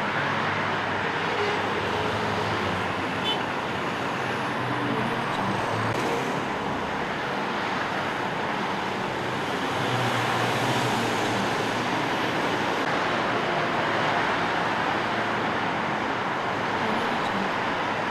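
Steady city street traffic: a continuous wash of passing cars, buses and trucks with engine hum, swelling slightly about ten seconds in.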